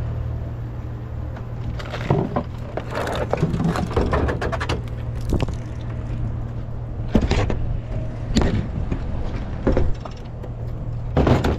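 A vehicle engine idling steadily under a series of knocks and clatters, like hard junk being handled and moved about.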